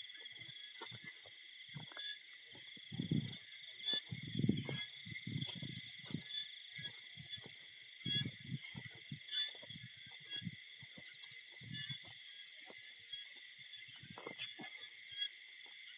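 Night chorus of crickets and other insects trilling steadily and high-pitched, with soft low thumps and rustles at irregular moments over it.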